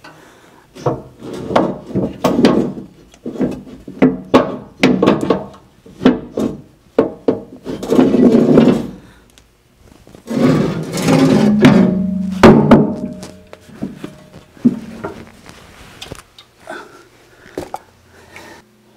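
The sheet-metal coolant and chip tray of a Do-All vertical band saw being worked loose and pulled out of the saw's base: a string of irregular metal knocks and clanks, with two longer scraping stretches near the middle.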